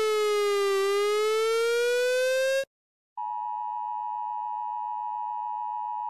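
A South Korean emergency alert tone: a buzzy, siren-like tone that slides down and back up, then cuts off about two and a half seconds in. After a short gap, a steady, quieter alert tone starts, given as the UK alarm and much like the US EAS attention signal.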